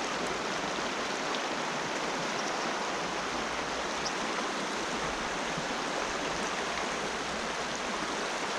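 Shallow mountain river running steadily over a rocky riffle, heard close to the water surface.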